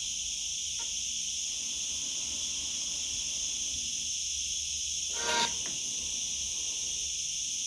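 Steady high-pitched insect chorus, with a short knock about five seconds in.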